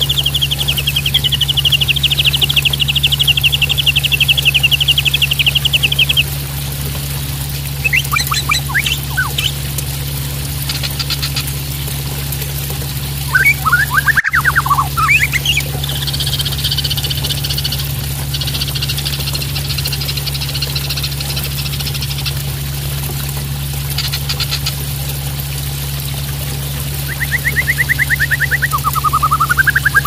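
Juvenile white-rumped shama calling: a long rapid trill at the start, then short calls, a stretch of raspy chatter, and another trill near the end. Steady splashing water and a low hum run underneath.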